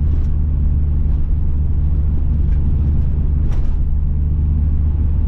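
Turbocharged Subaru EZ30 flat-six in a Liberty Spec B cruising at steady revs: a constant low engine drone with road noise under it, heard from inside the car.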